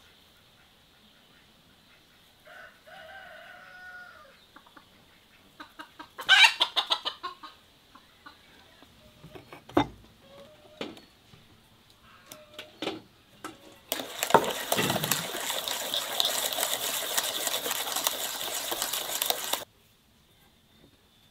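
Chickens clucking and calling, with a drawn-out call early on and scattered clicks and ticks. Then a loud steady rushing noise lasts about six seconds and cuts off suddenly.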